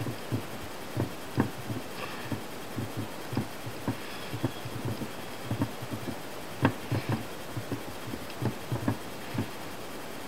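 Soft, irregular knocks and small clicks of a screw being driven by hand into the plastic transmission case brace of a nitro RC car, the tool and parts tapping against each other. One sharper click comes about two-thirds of the way through.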